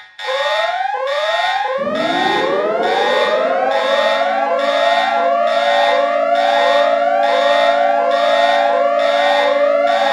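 Emergency alert (EAS) alarm tone: repeated rising whoops, about one and a half a second, stacked at several pitches. About two seconds in, a lower siren-like tone joins and winds up in pitch, then holds steady.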